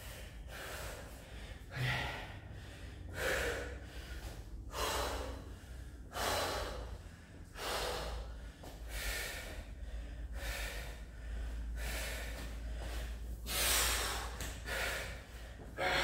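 A man breathing hard, winded from exercise, with deep, loud breaths about every one and a half seconds.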